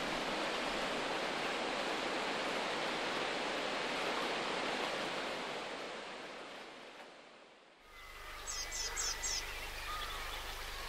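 Water rushing over a river weir, a steady white-water noise that fades out about seven seconds in. After that, over a quiet river, birds call, with a quick run of four high chirps.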